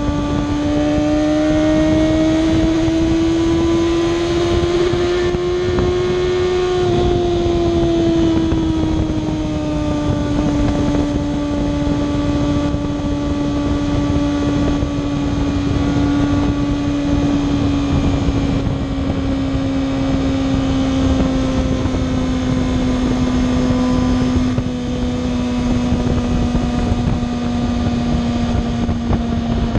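Kawasaki ZX-6R 636 inline-four engine running at a steady highway cruise. Its pitch rises a little over the first several seconds, then sinks slowly through the rest, over steady wind and road noise.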